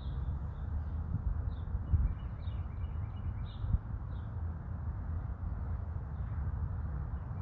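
Outdoor ambience: a low, uneven rumble of wind on the microphone, with birds chirping briefly several times.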